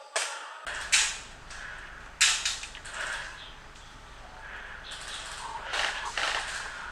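Sharp snaps of airsoft guns firing, three loud ones in the first two seconds and weaker ones later, over a steady hiss.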